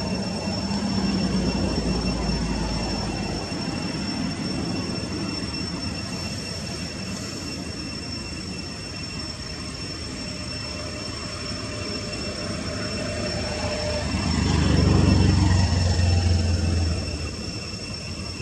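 Steady low rumble of background noise, the kind a distant vehicle or aircraft makes, swelling louder for a few seconds near the end, under two steady thin high-pitched tones.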